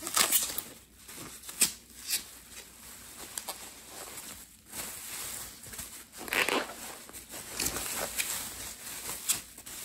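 Plastic bubble wrap crinkling and rustling as it is pulled open and unwrapped by hand, in irregular bursts with a few sharp crackles.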